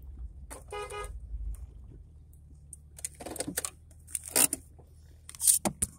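A short car horn toot about a second in, over a vehicle engine idling low. A run of short clunks and rustles follows; the loudest are about four and a half and five and a half seconds in.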